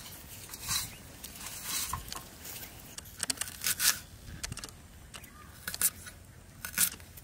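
Knife blade scraping and cutting the dry, papery skin off small red onions held in the hand: a string of short, dry scratches and rustles, spaced a second or so apart.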